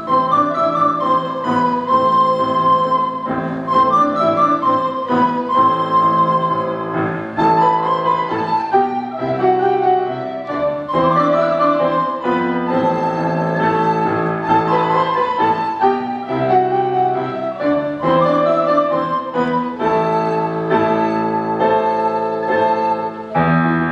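Recorder ensemble playing an arrangement of classical tunes, several recorder parts sounding together in melody and harmony.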